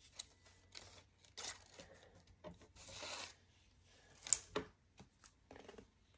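A4 paper being handled and folded by hand: irregular bursts of rustling and rubbing, with one sharp tap a little after four seconds in.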